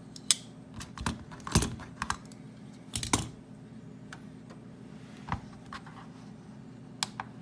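Irregular light clicks and taps of a folding knife and calipers being handled and set down on a hard surface, about ten in all, most in the first three seconds, over a steady low hum.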